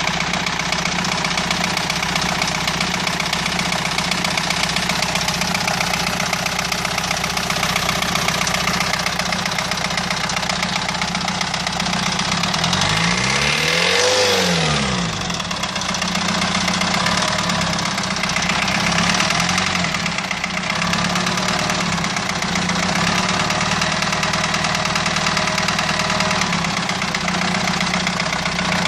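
Renault 2.2 dCi four-cylinder turbodiesel engine idling steadily, revved once briefly about halfway through and dropping back to idle.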